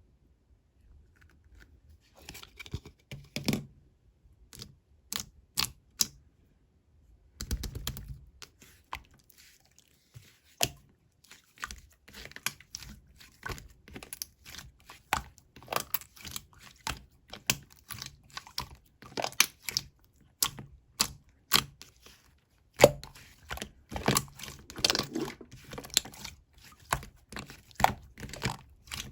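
Glossy blue slime being pressed, stretched and folded by hand, giving many irregular sharp clicks and pops from trapped air. It starts about two seconds in.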